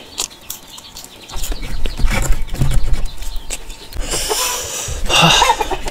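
A person chewing close to the microphone, with a run of sharp clicks and wet mouth smacks.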